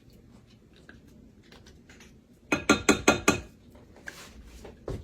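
A whisk clinking against a mixing bowl: a quick run of about five ringing taps about two and a half seconds in, with a few faint clicks before it.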